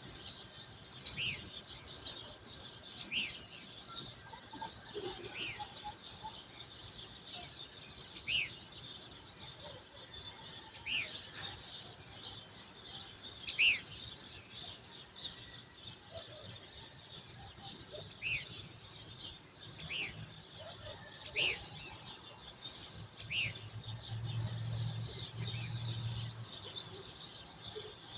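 Birds chirping in a morning chorus: one bird repeats short, sharp falling chirps every second or two over a steady high twittering of many others. A low hum rises for a few seconds near the end.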